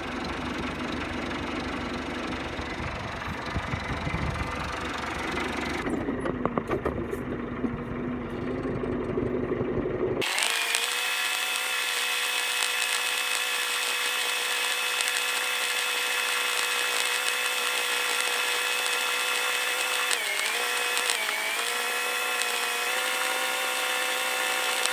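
Vehicle engine running while driving. About ten seconds in, the sound changes abruptly from a low rumble to a steady, higher whine, which dips briefly in pitch and recovers near the end.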